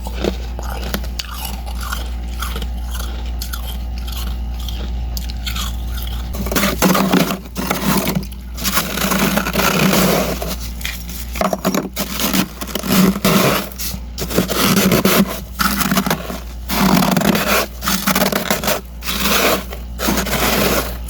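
Thick, powdery freezer frost being scraped off the freezer's edges: quiet crunching at first, then from about a third of the way in, loud, irregular crunchy scraping strokes. A steady low hum runs underneath.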